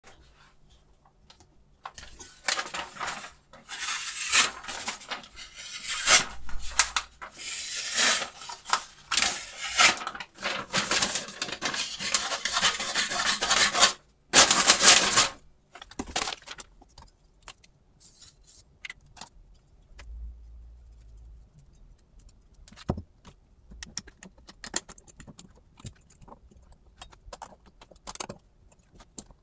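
Sheet of paper crinkling and rustling as a kitchen knife is drawn through it in a paper-cutting test of its edge, with a dense loud burst about halfway through. After that come scattered light metal clicks as the blade is clamped into an adjustable angle guide with a hex key.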